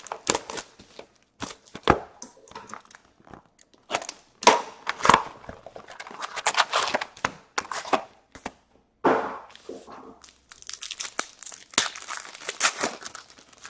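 A box of 2015-16 O-Pee-Chee Platinum hockey cards and its foil packs being torn open: irregular tearing and crinkling of wrappers with sharp clicks, stopping briefly several times.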